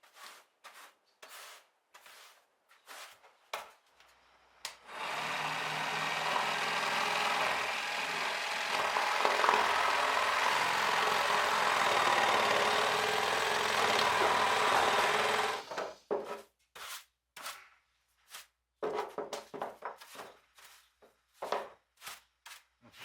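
A power tool runs steadily for about ten seconds, working wood. Before and after it come short knocks and scrapes from handling the work.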